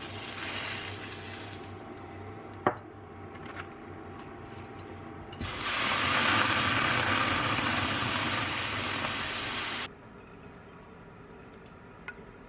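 Kitchen sounds while cooking: a sharp clink about three seconds in, then a loud steady hiss for about four seconds that starts and stops abruptly, with light ticks and taps after it.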